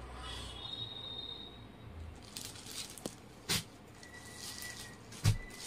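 Handling noise from folded sarees being moved: soft rustles, a short knock about three and a half seconds in, and a louder dull thump near the end.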